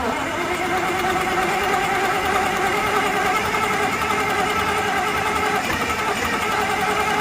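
Diesel generator engine running at a steady speed, having just caught with a brief rise in pitch.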